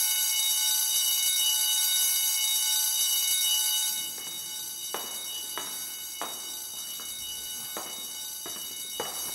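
A steady high ringing tone of several pitches at once, like an alarm, which drops in level about four seconds in. After that come regular footsteps, about one every half-second or so.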